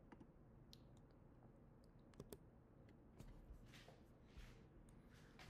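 Near silence with a few faint, scattered computer keyboard clicks.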